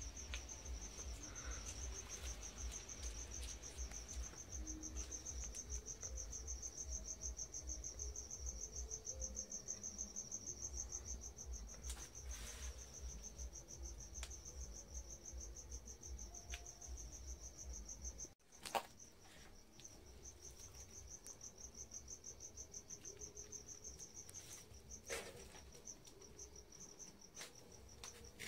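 A night insect's steady, fast, high-pitched trill runs throughout, under a low rumble. About two-thirds of the way through there is a sharp click, after which the rumble drops away and the trill goes on.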